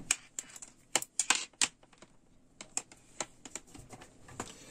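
Irregular sharp clicks and rattles of test leads with metal alligator clips and spade terminals being handled and untangled, in several short clusters.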